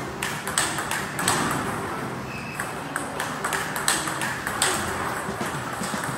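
Table tennis ball clicking sharply off the paddle and the table in a fast drill, about two to three clicks a second.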